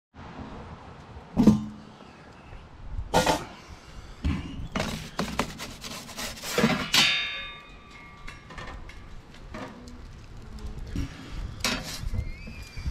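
Metal clanks and scrapes from a charcoal pizza oven's steel door and a metal pizza peel as a pizza is loaded: a handful of sharp knocks. One knock about seven seconds in rings on briefly.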